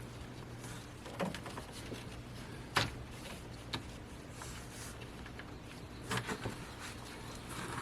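Scattered clicks and knocks of hand work on car parts, the loudest a sharp knock about three seconds in and a quick cluster of three near the end, over a steady low hum.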